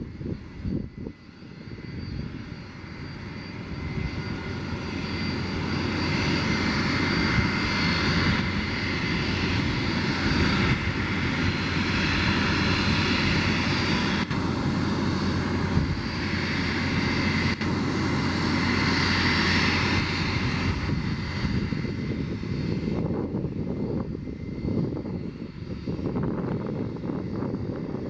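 Boeing 757-200 jet engines running as the airliner taxis: a steady rushing whine that swells over the first several seconds, holds, then eases off in the last few seconds.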